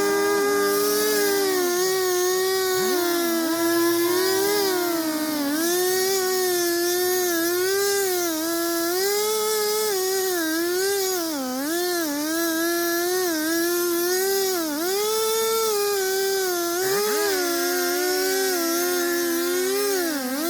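Two-stroke chainsaw running at high revs and cutting into wood. Its pitch repeatedly sags as the chain bogs in the cut, then climbs back.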